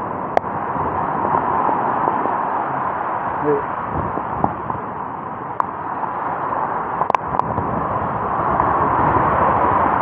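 Steady noise of storm wind and rain, with a few sharp clicks and knocks, the loudest about seven seconds in.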